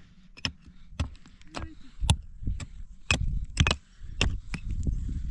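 A short-handled digging tool striking and chipping into stony earth at the bottom of a hole, sharp strikes coming about twice a second at an uneven pace.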